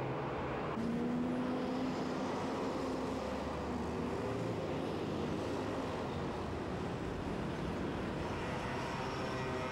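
Steady vehicle noise: a continuous rumble with engine hum. The sound changes abruptly about a second in.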